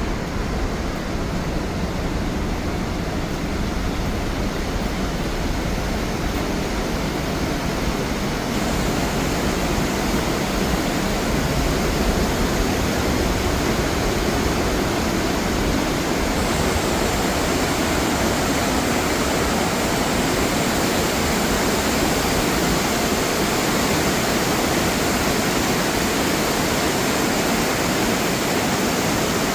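Waterfall pouring: a steady, full rush of falling water.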